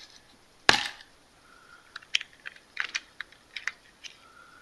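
Number 9 Torx screwdriver backing a small screw out of a handheld radio's plastic case. One sharp click comes a little under a second in, then a run of small light clicks as the bit turns and the radio is handled.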